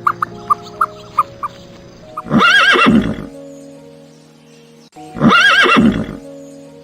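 A horse whinnying twice, each neigh about a second long with a wavering, shaking pitch, over steady background music.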